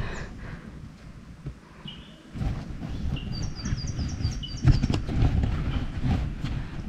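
Birds chirping in open bushland: scattered single chirps, with a quick run of about eight high chirps in the middle. A low rumbling noise comes up about a third of the way in and stays under the birdsong.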